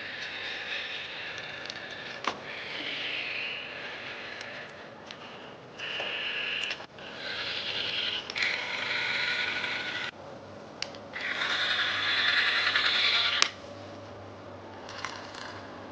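Small tools working on a smartphone during a battery cell replacement: stretches of scraping hiss a few seconds long, broken by pauses and a few sharp clicks.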